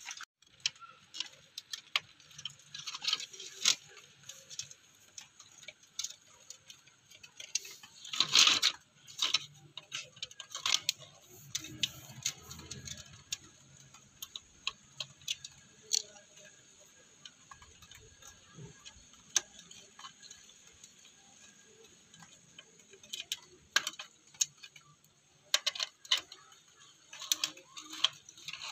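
Irregular clicks, scrapes and knocks of a screwdriver and hands working on the screws and speaker of an old cassette radio's plastic case, with one louder clack about eight seconds in and a flurry of clicks near the end.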